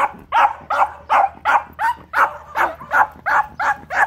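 Small terrier barking rapidly and evenly, about three short, sharp barks a second: alert barking at a dog on the other side of the yard wall.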